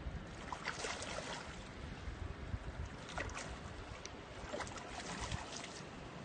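A hooked fish splashing and thrashing at the water's surface in a few short bursts, over a steady low rumble of wind on the microphone.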